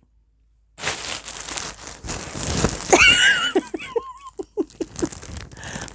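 Large plastic bag of polyester fibrefill crinkling and rustling as it is handled and lifted up, starting about a second in. A brief high-pitched vocal sound comes through the rustling midway.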